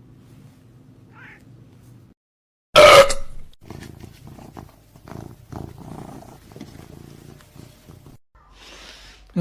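A domestic cat purring steadily, then a sudden loud cry about three seconds in, followed by quieter irregular cat sounds.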